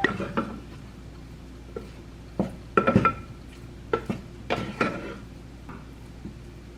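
A metal utensil clinking against dishes, a scattering of light clinks that each ring briefly, bunched together in the middle.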